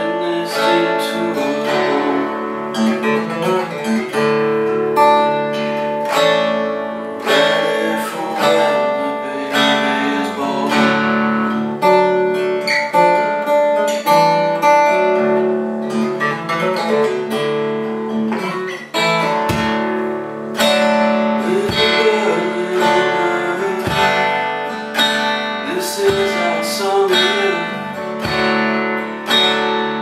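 Steel-string acoustic guitar in open D tuning playing a blues passage, picked and strummed chords ringing over a steady low drone string. There are a few low thumps in the second half.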